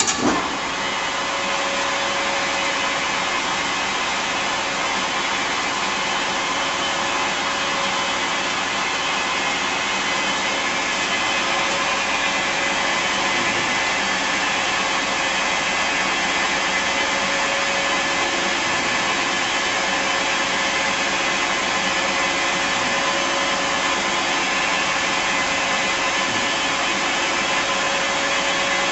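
Bridgeport Romi EZ-Path CNC lathe switched on with a brief clatter, then running at a steady speed: an even mechanical rush with a constant whine that does not change.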